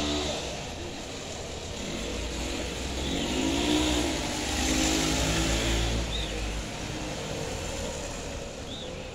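A motor vehicle engine passes in the street, its pitch rising and falling over a steady low rumble, with two short high chirps later on.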